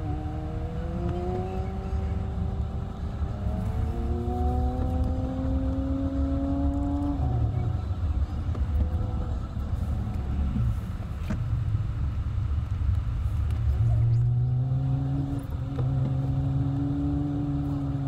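Jeep Wrangler driving slowly on a wet campground road, its engine running over a steady low rumble of tyres and drivetrain. The engine note climbs for several seconds, falls back about seven seconds in, and climbs again from about fourteen seconds in.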